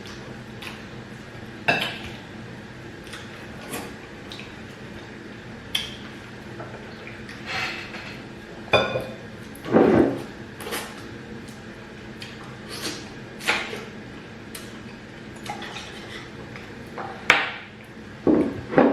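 Eating at a table: bowls and utensils clinking in scattered short clatters, with a few louder bursts about halfway through and near the end.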